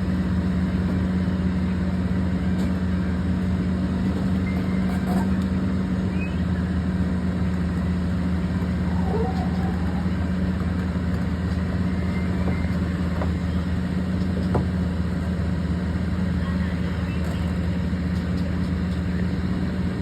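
Excavator's diesel engine running steadily at an unchanging pitch.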